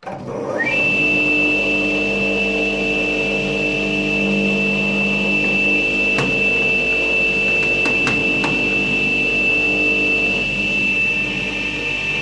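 Wet tile saw switched on: the motor spins up with a rising whine in the first second, then runs steadily with the diamond blade spinning freely, not yet cutting. A few light knocks come midway.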